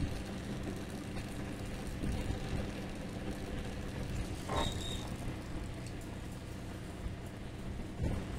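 Steady low mechanical drone of a running motor or engine, with a brief squeak about halfway through and a single knock near the end.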